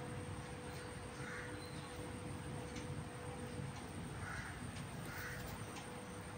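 A bird calling in the background: three short calls, one about a second in and two more close together past the middle, over a steady low hum.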